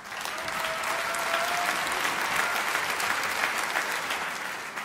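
Audience applauding in a large theatre hall, swelling in the first half second and dying away near the end.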